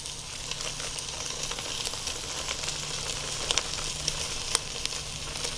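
Roast beef searing in a preheated Nutri Stahl 8-quart roaster: a steady sizzle with scattered small crackles.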